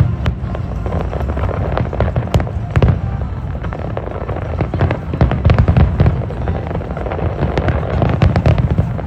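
Fireworks display going off: a quick run of sharp bangs and crackles over a continuous low rumble.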